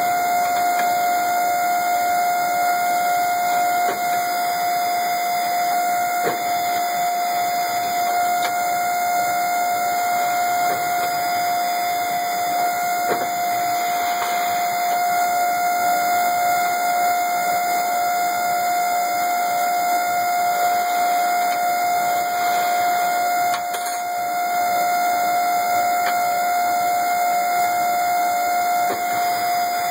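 Bending machine giving off one continuous, steady high-pitched tone with overtones, unchanging in pitch and loudness.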